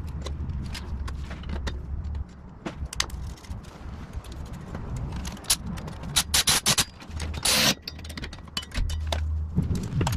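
Metal clinks, taps and scrapes of a wrench, bolts and a steel mounting bracket being fitted to a motorcycle's pannier rack. A quick run of clicks comes about six seconds in, then a short rasping burst.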